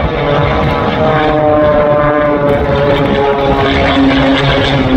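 Aerobatic biplane's piston engine and propeller running steadily in flight, the engine note slowly falling in pitch through the middle few seconds.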